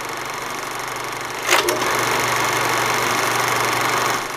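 Old film projector sound effect: a steady mechanical whirring and clatter with hiss, stepping up louder after a short burst about a second and a half in.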